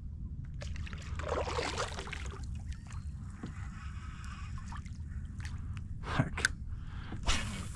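Water splashing and trickling beside a kayak, with a few sharp knocks near the end, over a steady low rumble.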